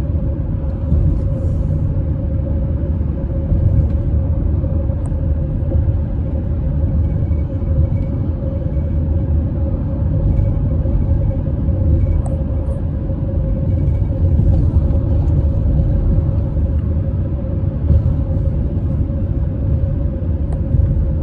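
A car driving at a steady speed: a continuous low road and engine rumble with a faint steady hum.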